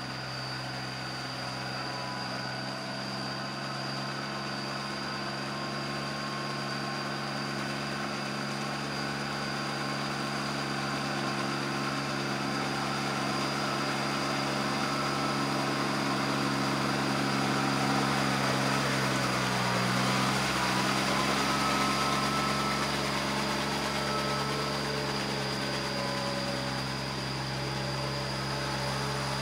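Small Kubota tractor's diesel engine running steadily as it drags cage wheels and a leveling board through a flooded rice paddy. It grows louder as the tractor comes nearer, and its note dips briefly about two-thirds of the way through before picking back up.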